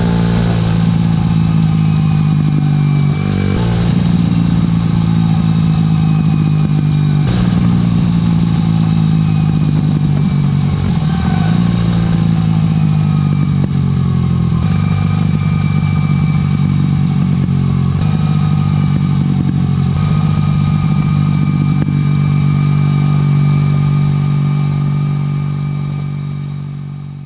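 Aprilia RS4 125's single-cylinder four-stroke engine with a LeoVince exhaust, idling and blipped several times, with sharp crackles and pops from the exhaust. The sound fades out near the end.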